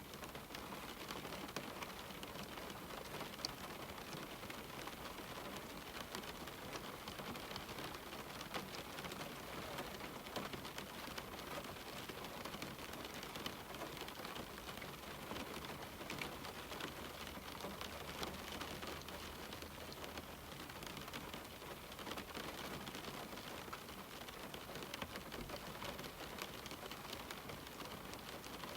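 Steady rain falling on a window pane: a continuous even hiss with many small raindrop ticks scattered through it.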